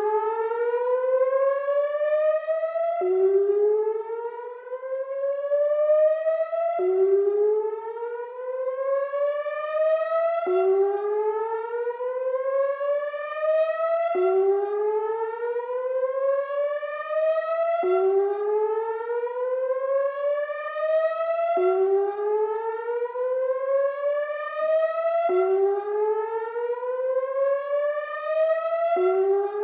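ATI HPSS-16R electronic speaker siren sounding its whoop signal on a tornado siren test: a loud rising glide that climbs for nearly four seconds, drops back sharply and starts again, about eight times over.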